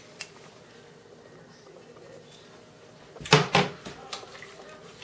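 Bottles handled on a kitchen counter: a short cluster of knocks and clatters about three seconds in, then a few lighter clicks as a small bottle's cap is worked.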